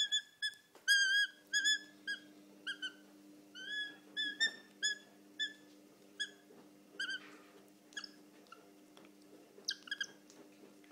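Repeated short, high-pitched whining calls from an animal, coming several a second at first and more sparsely later. A steady low hum runs underneath from about a second in.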